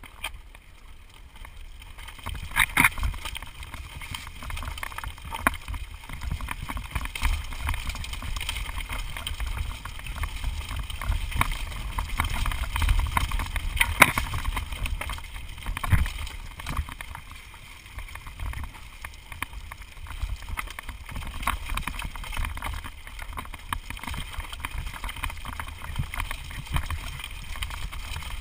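Mountain bike rattling down a rocky trail, its tyres and frame clattering over stones, with wind rumbling on the microphone. Sharp knocks from hard hits come throughout, the loudest about three seconds in and near the middle.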